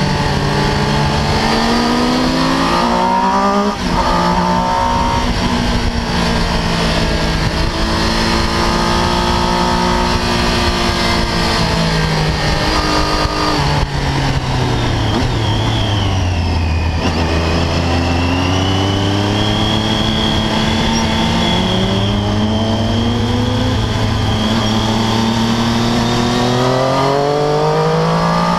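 Triumph Daytona 675 inline-three engine heard from on board at track speed, revving up with a sharp drop in pitch at an upshift a few seconds in. Around the middle the pitch falls for several seconds as the bike slows for a corner, then climbs again near the end under acceleration, over a steady rush of wind.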